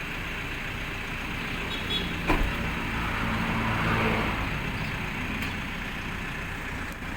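A motor vehicle's engine running steadily at idle, with a single sharp metallic knock about two seconds in and a brief swell in noise soon after.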